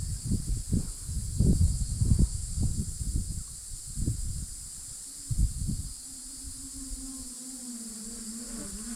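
A steady, high insect chorus, like crickets or cicadas, runs throughout. Uneven low rumbling sits under it in the first few seconds. A low steady hum comes in about halfway through.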